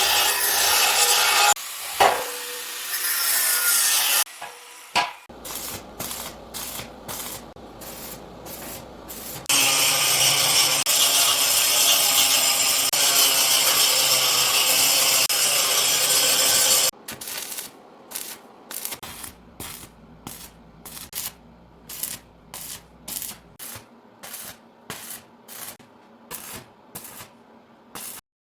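Tools working wood in several sections: even back-and-forth scraping strokes, about two a second, and a stretch of steady loud rasping noise that stops abruptly.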